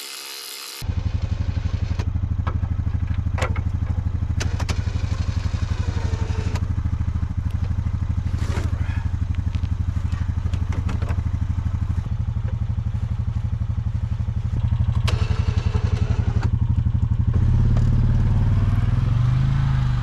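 Brief whir of a cordless drill, then a Honda Rancher ATV's single-cylinder engine running steadily, with a few sharp knocks as the snow plow is fitted. Near the end the engine gets louder and higher as the four-wheeler moves off with the plow.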